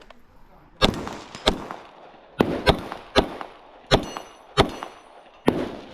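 Airsoft gun firing a string of about eight sharp shots at uneven spacing.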